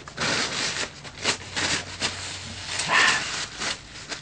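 Crisp roast-pig (lechon) skin crackling and crunching in an irregular run of scratchy strokes, a few a second, as it is cut or bitten through.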